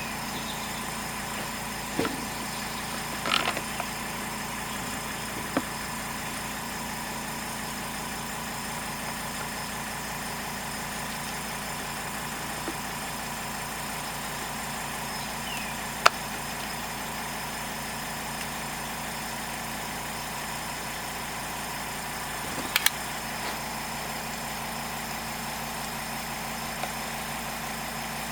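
Poulan P3816 two-stroke chainsaw idling steadily. A few sharp clicks and knocks sound over it, the loudest about halfway through.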